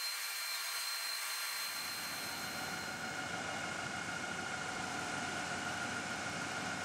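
A steady machine-like drone with hiss. A lower rumble fills in about a second and a half in, and a steady high whine comes through partway along.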